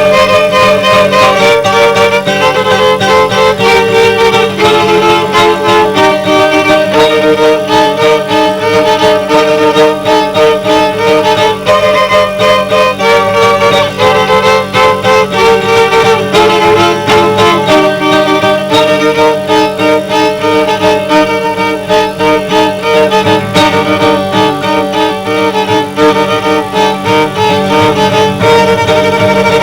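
Live violin and guitar duo: the violin plays a continuous melody of held and moving notes over a steady, rhythmic guitar accompaniment.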